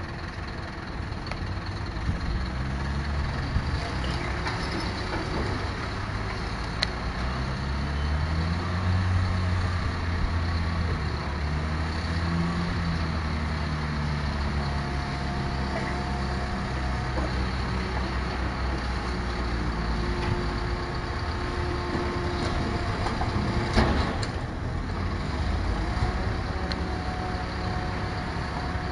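Rear-loading garbage truck's engine running, revving up and down for several seconds and then settling into a steady rumble. A few sharp knocks come near the end.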